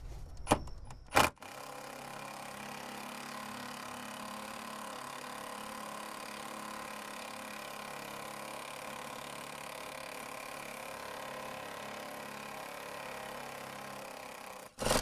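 Cordless 3/8-inch impact wrench: a couple of clicks and a sharp knock about a second in, then its motor whirs at a steady speed without hammering as it spins the fuel-filter bracket bolt out, stopping abruptly just before the end.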